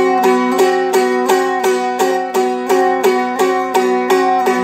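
Seagull Merlin stringed instrument played in even strokes, about three a second, moving through a chord progression.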